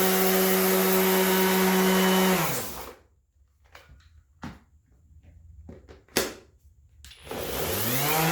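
Metabo HPT 18-volt cordless 5-inch orbital sander running steadily, then switched off about two seconds in and winding down. While it is stopped there are a few sharp clicks and knocks, and near the end it is switched back on, its pitch rising as it spins up.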